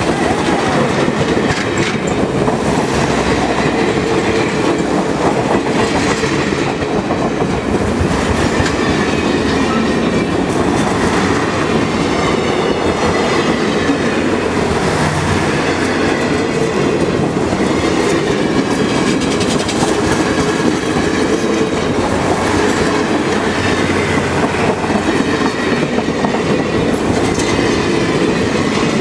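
Passenger cars of an excursion train rolling past close by: a loud, steady rumble of steel wheels running on the rails.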